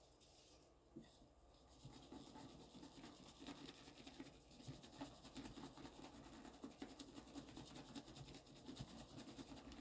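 Comet powder cleanser being shaken from its canister onto a sponge in a sink: a faint, continuous patter of small ticks and scratches, starting about a second in.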